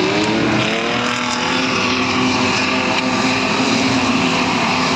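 Several street stock race cars' engines running together on the track, their pitches rising and falling as the drivers get on and off the throttle about a second in, then holding fairly steady.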